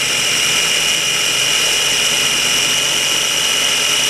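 KitchenAid mini food processor's motor running steadily with a high whine, its blade churning heavy whipping cream that has thickened to whipped cream on its way to becoming butter.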